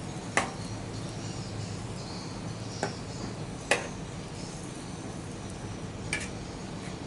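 Metal spatula knocking against a steel wok while stirring a stew, four sharp knocks spread over several seconds, over a steady low background hiss.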